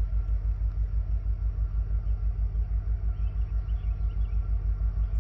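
Diesel locomotive engine heard from a distance as a steady low rumble, throbbing evenly about six or seven times a second.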